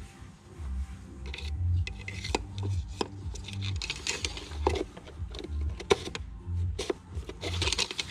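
Rubbing and scraping as the engine oil dipstick is pulled out, handled and slid back in, with a few light clicks and knocks, over background music with a steady low bass line.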